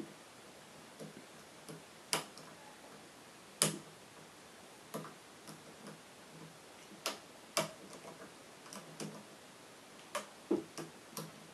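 A metal hook pick clicking irregularly inside the keyway of a 5-pin euro cylinder lock as it sets and slips off the pins during single-pin picking. There are a dozen or so sharp clicks at uneven intervals, and the pick gives little feedback.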